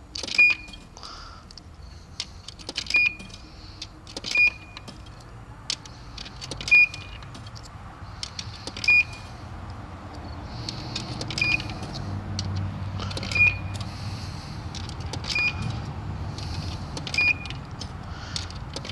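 Car wash tokens dropped one at a time into a coin box's slot, about nine sharp metallic clinks, one every two seconds or so. A low rumble builds in the second half.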